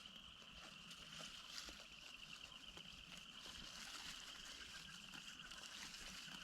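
Faint, steady chorus of frogs calling: a continuous high trilling drone from a pond where the frogs are breeding.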